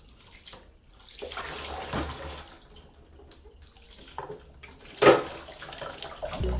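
Water running from a tap and splashing in a sink as things are washed, uneven and sloshing, with one sudden louder sound about five seconds in.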